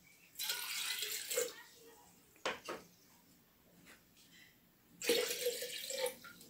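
Water poured from a plastic tumbler into a partly filled jug, twice: a splashing pour lasting about a second, starting about half a second in, and another starting about five seconds in. Between the pours come two light knocks close together.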